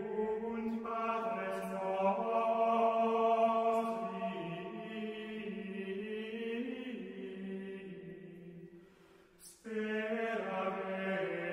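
Slow sacred chant sung on long held notes that move stepwise in pitch, with a brief break about nine seconds in before the singing resumes.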